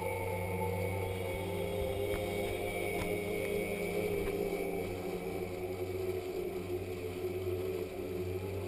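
Outboard motor of a small open boat running steadily at speed, an even, unchanging drone.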